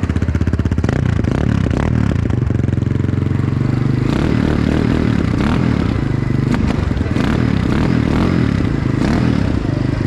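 Dukare DK250R dirt bike's engine running, its note changing about a second in and again around four seconds.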